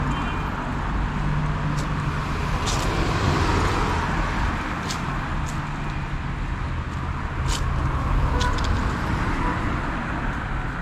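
Street traffic noise: a car engine running close by, its low hum rising and fading over a steady road rumble, with a few light clicks.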